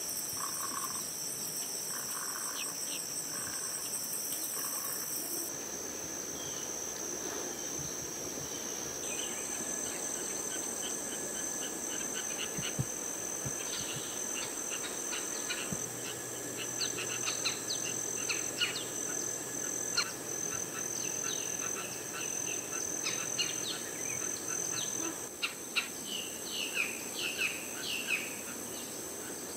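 A steady, high-pitched insect drone, with many short bird chirps and calls joining from about a third of the way in.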